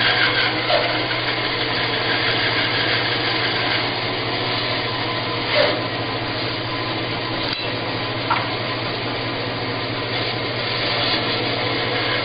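Bandsaw running with a steady motor hum while its blade cuts a canarywood block, with a few short louder spots as the blade bites, the strongest about five and a half seconds in.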